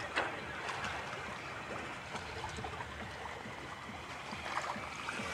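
Water swishing and trickling along the hull of a sailing yacht running downwind under sail, with one sharp knock just after the start.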